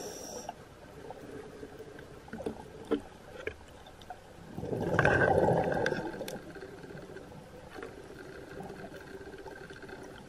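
Underwater ambience picked up by a diver's camera, with one gurgling rush of exhaled scuba bubbles about halfway through and a few faint clicks before it.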